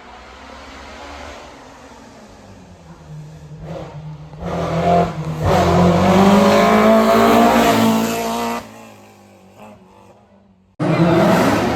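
BMW M3 E30 rally car's S14 four-cylinder engine approaching, then loud and rising in pitch under hard acceleration as it passes, dropping off sharply and fading away. Near the end the engine sound cuts suddenly back in loud.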